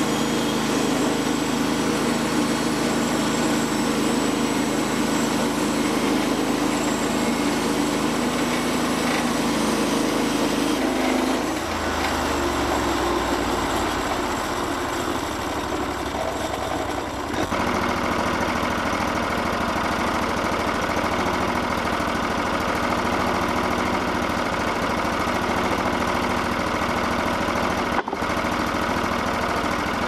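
Gasoline engine of a portable band sawmill running steadily while the band blade cuts through a post oak log. About twelve seconds in the engine slows to a lower, steady idle, and a single sharp knock comes near the end.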